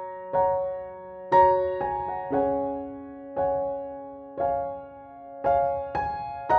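Slow, gentle background piano music: notes and chords struck about once a second, each left to ring and fade.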